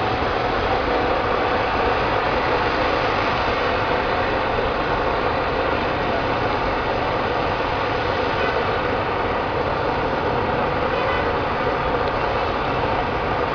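Steady din of vehicle engines idling in traffic.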